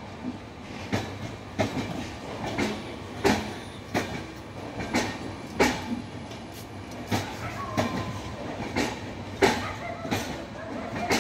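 Indian Railways passenger coaches rolling slowly into a station platform, their wheels clicking over the rail joints in a steady rhythm of about three clicks every two seconds over a low rumble.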